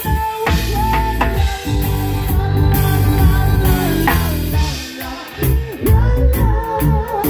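Live reggae band playing: acoustic guitar and drum kit, with a voice singing over a steady bass line.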